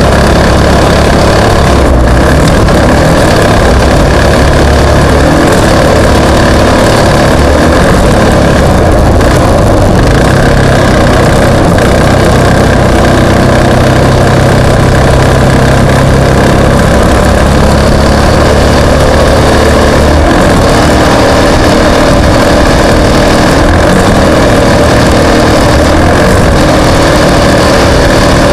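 Off-road race vehicle engines running hard, very loud and continuous, their pitch rising and falling as they accelerate and ease off.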